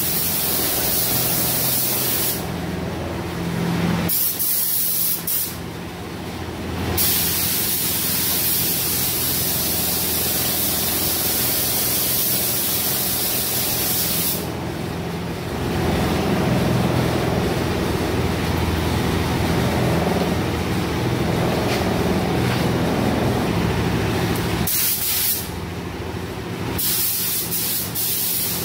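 Gravity-feed paint spray gun hissing steadily as it sprays paint onto a car body, the hiss stopping for a second or two about four times as the trigger is let off between passes.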